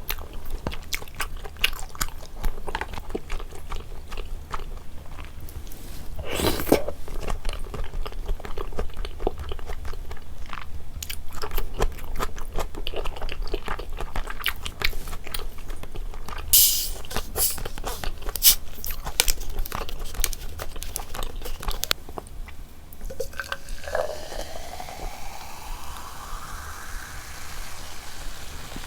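Close-miked eating of rosé jjimdak (braised chicken with glass noodles): chewing and biting with many quick wet mouth clicks, and a couple of louder crunchy bites. Near the end, a tone rises steadily for a few seconds.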